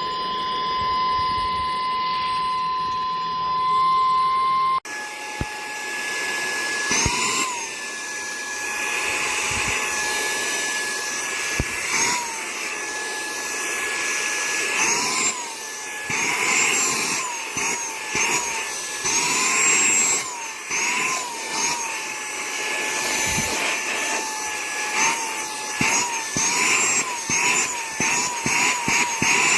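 Saker 3-in-1 cordless handheld vacuum's brushless motor running with a steady high whine. After an abrupt cut about five seconds in, the whine keeps dipping and springing back in pitch, more often near the end.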